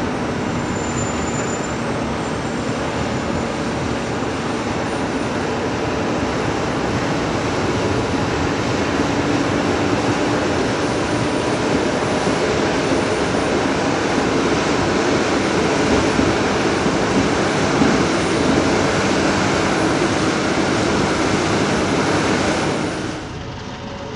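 Heavy diesel construction machinery running and working: a loud, steady mechanical din with a faint engine hum in it. It drops off abruptly about a second before the end.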